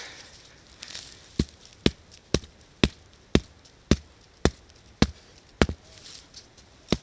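A hand-held stone hammering a sharpened wooden stake into the soil: about ten sharp strikes, roughly two a second, starting a little over a second in.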